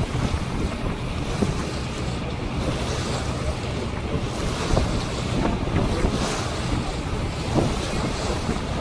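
Wind buffeting the microphone on a moving boat, over the steady hum of the boat's engine and the rush of choppy water.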